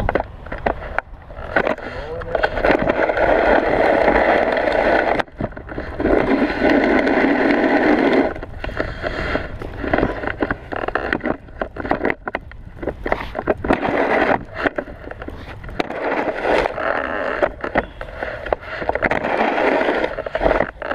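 Snow shovel blade scraping along the ground as it pushes snow, in repeated pushes of two to four seconds each, with short pauses and knocks between them.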